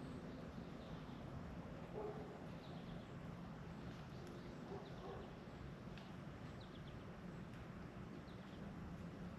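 Faint outdoor ambience: a few scattered, distant bird chirps over a steady low hum.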